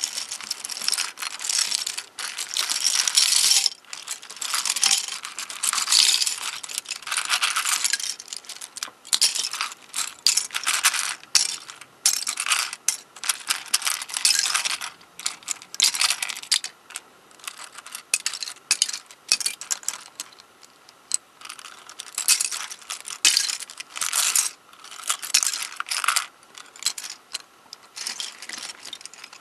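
Small plastic pieces of a MoYu 13x13x13 puzzle cube clicking and clattering in irregular bursts as the cube is taken apart piece by piece.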